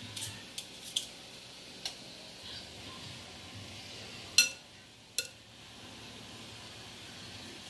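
Metal kitchen tongs clinking against a glass mixing bowl while picking up raw potato chunks. There are a few light clicks in the first two seconds, a louder clink with a brief ring a little over four seconds in, and another sharp click about a second later.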